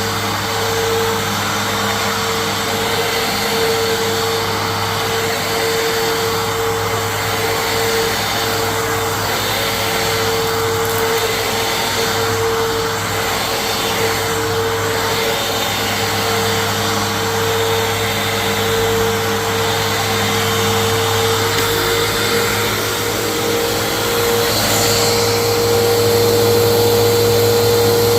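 Phantom Fury dual-cyclone bagless vacuum cleaner running continuously with a steady motor whine, growing slightly louder in the last few seconds.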